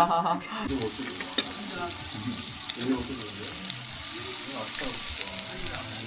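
Tomahawk steak and asparagus sizzling on a hot grill plate during the first sear, a steady hiss that starts about half a second in, right after a laugh cuts off.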